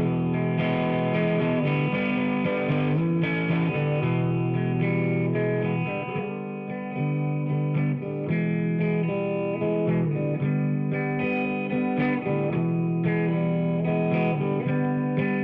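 Background music: distorted electric guitar playing chords with a steady beat.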